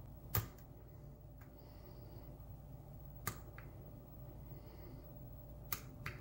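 Sharp metallic clicks of a lock pick working the pins of a pin-tumbler challenge lock while it tries to lift the stubborn sixth pin. There are three louder clicks a few seconds apart, the first the loudest, with a few fainter ticks between them over a low steady hum.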